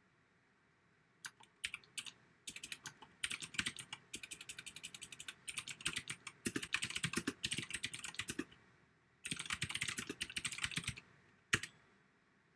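Typing with simulated typewriter keystroke sounds from NoisyTyper: a few separate keystrokes, then fast runs of clicking broken by short pauses, and one louder single strike near the end.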